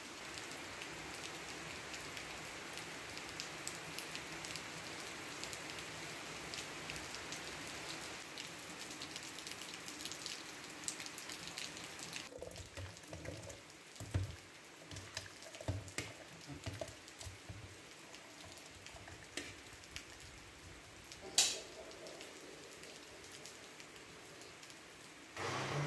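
Steady rain falling on trees and grass, with scattered drop ticks; about halfway through the rain is quieter, with a few soft low thumps and one sharp click. Near the very end an electric countertop blender switches on with a sudden steady motor hum, blending pumpkin soup.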